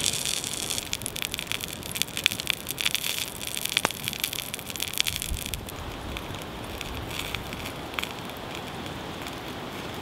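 Wood campfire crackling, with many sharp pops and snaps over a steady hiss; the popping is busy for the first half, then thins to a few pops over a quieter hiss.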